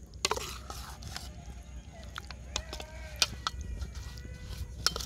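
A perforated steel spoon stirring chicken pieces through a wet egg-and-flour marinade in a ceramic bowl, with scattered clicks and scrapes of the spoon against the bowl.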